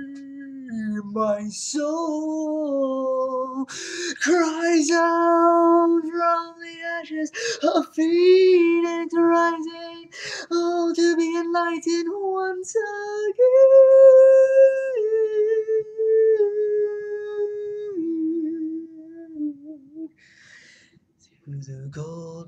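A man singing unaccompanied in a high voice, holding long notes that slide from pitch to pitch. It fades out about twenty seconds in, and a lower voice comes in near the end.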